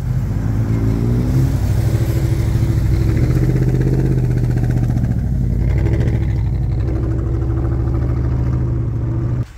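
Pickup truck engine running under load while pulling on a tow strap through deep snow. The pitch rises slightly about a second in, then holds steady, and the sound stops suddenly near the end.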